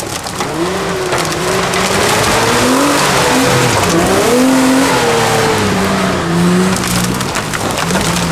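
Off-road 4x4 SUV engine revving up and down under load as it crawls through brush, with twigs and branches crackling under the tyres.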